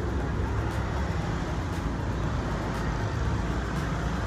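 Steady low rumbling background noise, with faint ticks about once a second.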